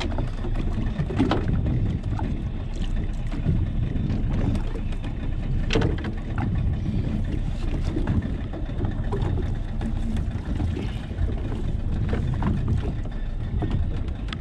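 Steady rumble of wind on the microphone and water washing against the hull of an open wooden fishing boat at sea, with a few sharp knocks as a wire fish pot is hauled up against the side.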